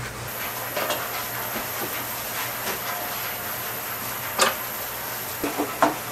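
A steady hiss with a few sharp clicks, the loudest about four and a half seconds in.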